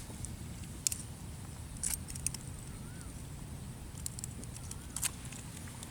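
Steady wind rumble, with a handful of short sharp clicks and taps scattered through it as a fishing lure is retrieved with a jerky action on rod and reel.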